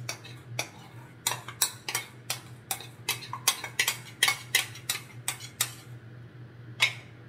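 Spatula scraping and knocking against the inside of a small ceramic bowl, a quick irregular run of sharp clicks, as beaten egg is scraped out into a mixing bowl; the clicks stop about six seconds in, with one more near the end. A steady low hum runs underneath.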